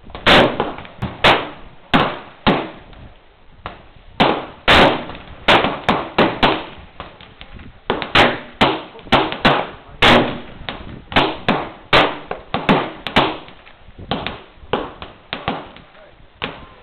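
Gunfire at a shooting range: many sharp shots at irregular intervals, sometimes two or three a second, each with a short echoing tail.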